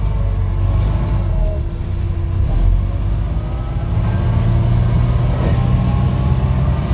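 MAZ 203 low-floor city bus under way: the diesel engine runs steadily, and from about four seconds in a whine from the ZF automatic gearbox rises in pitch as the bus picks up speed.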